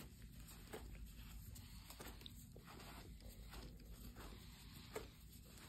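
Faint, soft rustling of cotton splint padding being pulled apart and lifted off a leg by gloved hands, with a small click about five seconds in.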